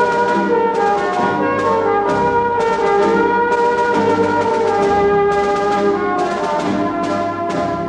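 Background music: orchestral brass holding sustained chords, the notes shifting every second or so.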